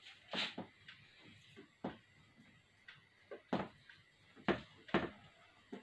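Marker pen on a whiteboard as words are written: a handful of short, separate taps and scrapes.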